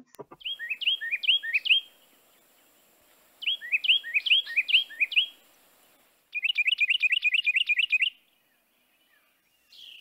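Carolina wren singing its rolling 'tea-kettle' or 'cheeseburger' song: two bursts of repeated two-note phrases, then a faster run of notes about six seconds in.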